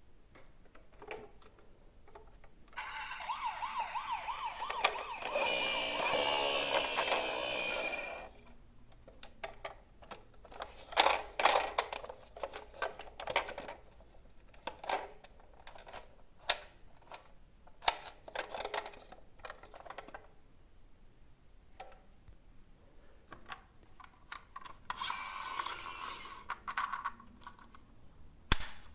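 Toy emergency-vehicle siren sounds: a fast-warbling electronic siren about three seconds in that turns harsher and louder for a few seconds, then sharp clicks and clacks of die-cast mini cars rolling and knocking down a slope, with a second short siren burst near the end.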